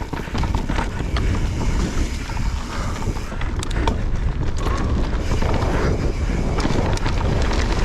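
Wind buffeting the microphone of a mountain bike rider's on-board camera during a fast descent, with steady tyre noise and scattered knocks and rattles from the bike over rough dirt.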